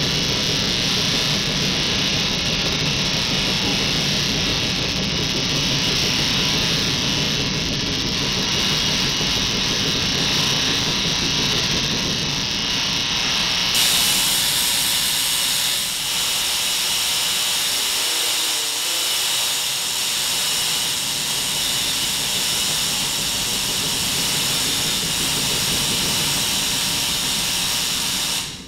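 Million-volt spark-gap Tesla coil firing: a loud, steady hissing buzz from its spark gap and the arcs discharging into the pyramid and the sphere above. The low rumble thins out about halfway through, and the sound cuts off near the end.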